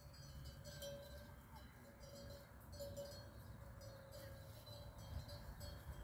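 Faint, irregular clinking and ringing of the small bells worn by grazing goats and sheep, over a low rumble.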